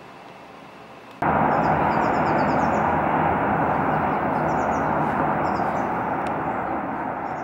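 Steady outdoor rushing ambience that comes in suddenly about a second in, with faint bird chirps over it several times, easing slightly near the end.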